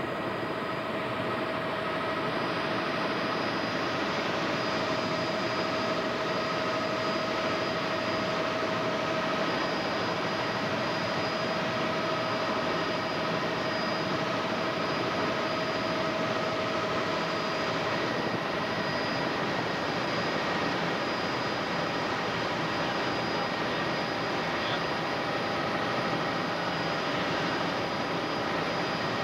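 Helicopter in flight heard from inside its cabin: a steady drone of engine and rotor noise with a few constant whining tones over it.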